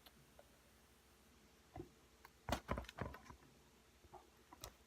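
Faint handling noises: a few soft taps and rustles as a foam squishy toy is turned over in the hands, with a small cluster of them midway.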